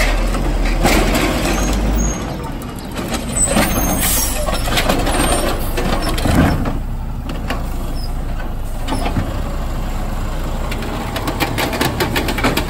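Mack automated side-loader garbage truck running with a steady low diesel rumble. An air-brake hiss comes about four seconds in while the hydraulic arm reaches out and grips a trash cart. Sharp knocks and clatter come near the end as the cart is lifted and tipped into the hopper.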